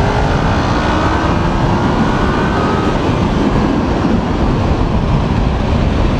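Kawasaki Ninja 650 parallel-twin engine with an Akrapovic aftermarket exhaust pulling hard under acceleration, its pitch rising over the first few seconds, under heavy wind rush on the microphone.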